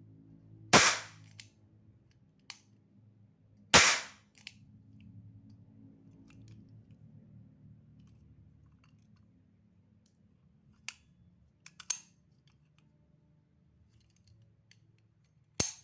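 Two sharp, loud snaps about three seconds apart as the trigger and hammer of an all-metal revolver-shaped lighter are pulled. Fainter clicks of its metal mechanism follow later, with one more sharp snap near the end.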